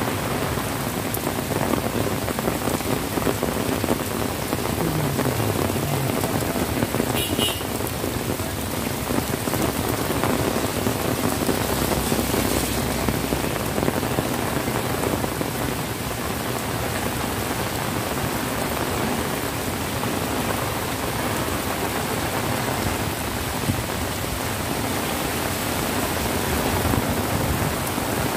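Heavy rain pouring steadily onto a paved street, a sidewalk, grass and trees, heard as a dense, even hiss.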